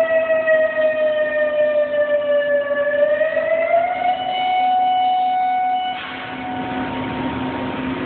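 Outdoor tornado warning siren wailing on one steady tone that sinks slightly in pitch, rises again about halfway through and holds. It then turns suddenly quieter and duller about six seconds in, over a steady low hum.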